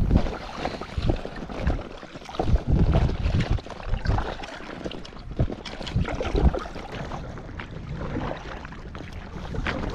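Kayak paddle blades dipping and splashing in lake water, with irregular splashes and knocks, over wind rumbling on the microphone. The strokes thin out in the last few seconds.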